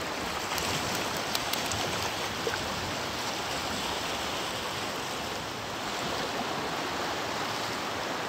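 Steady rush of choppy sea water, small waves lapping and splashing, with a few light ticks in the first couple of seconds.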